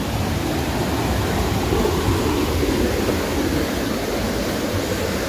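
Steady, loud rush of a swollen, flooded river in spate.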